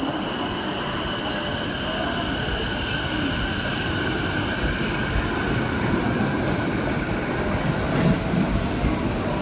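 A train running alongside the platform, with a high steady squeal over the rail rumble that fades about six seconds in.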